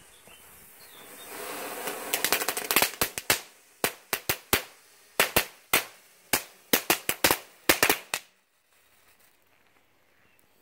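Funke Star Kids, a small category F1 firework fountain, hissing as it burns, then giving a long string of sharp, unevenly spaced pops that stop about eight seconds in.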